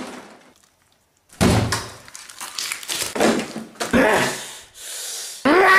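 A broken interior door banging, with a sudden loud bang about a second and a half in after a moment of silence, followed by smaller knocks and thuds that ring in a small room. A pitched sound starts right at the end.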